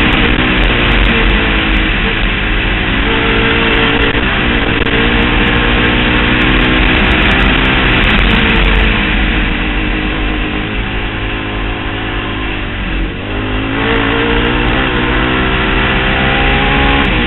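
Honda TRX700XX's single-cylinder four-stroke engine running hard through a Big Gun Evo-R aftermarket exhaust, its pitch climbing and dropping again and again as the quad accelerates and shifts. About 13 seconds in the throttle eases off briefly, then the pitch climbs once more.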